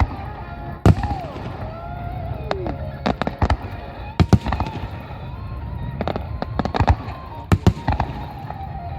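Aerial fireworks shells bursting in a large display: sharp bangs, some single and some in quick clusters of two or three, over a continuous low rumble of more distant bursts.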